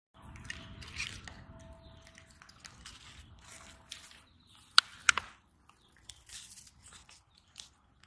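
Fox squirrel scrabbling on a wooden bench as it snatches up a grape, with two sharp clicks about halfway through, then small crackling bites as it starts eating the grape near the end.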